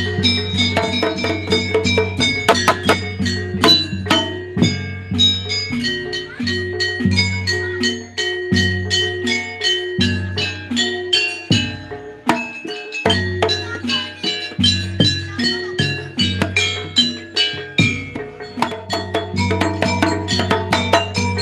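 Javanese gamelan music for jaranan playing the opening gending: a dense rhythm of struck, ringing metal notes with drums over a low sustained bass.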